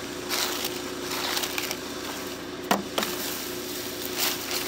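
Plastic trash bags and foil wrappers rustling and crinkling as a hand rummages through dumpster trash, with a sharp tap about two and a half seconds in.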